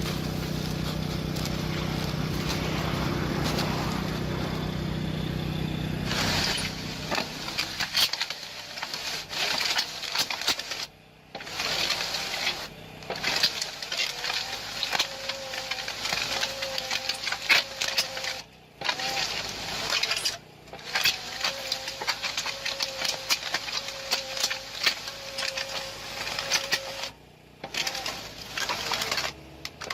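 A machine engine runs with a steady hum, then gives way to irregular clattering and scraping with a steady whine, cut off abruptly several times.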